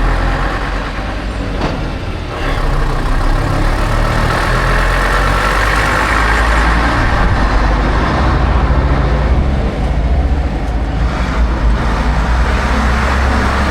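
Bus diesel engine running close by. It gets louder about two seconds in, then holds a steady low drone.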